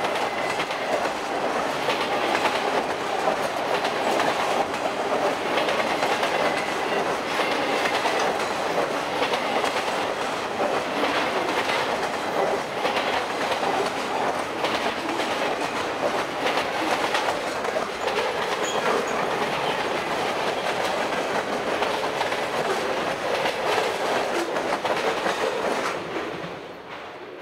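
Freight train cars, multi-level autoracks, rolling past with their wheels clicking over rail joints in a steady clickety-clack. The noise falls away near the end as the tail of the train goes by.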